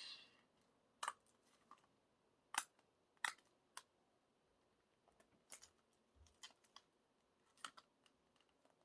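Faint, scattered clicks and crackles of plastic shrink-wrap on a CD album being picked at and torn open by hand, about a dozen sharp snaps with pauses between them.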